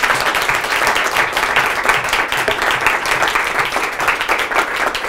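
Audience applauding: many hands clapping in a dense, steady patter, easing slightly near the end.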